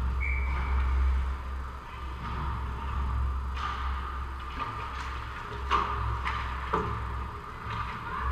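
Ice hockey play at the net: sharp clacks of sticks and puck on the ice and boards, about six of them in the second half, over a steady low rumble and hum of the rink.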